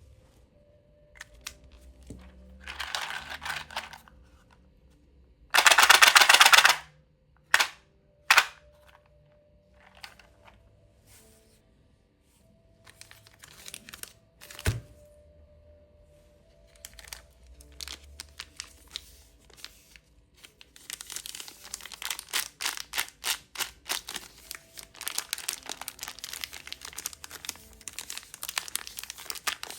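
Plastic candy wrappers being handled and unwrapped: crinkling, a loud tearing rip about six seconds in and scattered sharp clicks, then dense, fast crinkling through the last third.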